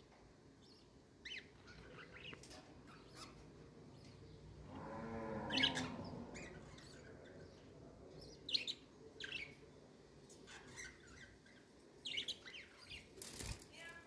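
Pet budgerigars chattering softly: scattered short, high chirps, with louder runs about five seconds in and again near the end, and a sharp knock shortly before the end.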